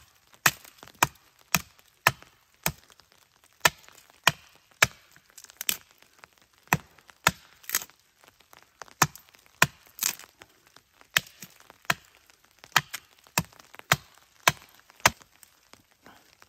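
A hand-held blade chopping into the base of a small dead standing tree: a steady run of sharp wooden knocks, about two a second, stopping shortly before the end.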